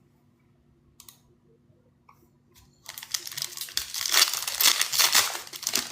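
Almost quiet with a faint click about a second in, then from about three seconds a foil trading-card pack wrapper crinkling and tearing open.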